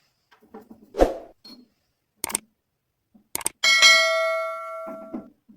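A few sharp clicks, then a single bright bell-like ding that rings out and fades over about a second and a half.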